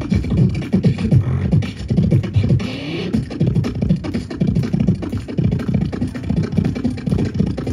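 Solo beatboxing into a handheld microphone over a PA: a fast, continuous run of mouth-made kick-drum and snare hits, with a short sung or hummed glide about three seconds in.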